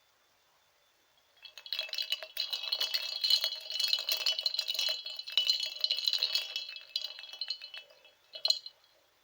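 Ice cubes stirred in ice water, clattering and clinking rapidly against the container with a ringing tone. The stirring starts about a second in and dies away after about eight seconds, followed by one short clink near the end.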